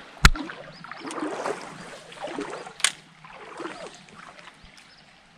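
A sharp knock as a hand handles a GoPro action camera, then soft rustling and light water sloshing of someone moving along a small creek, with a second sharp knock about three seconds in.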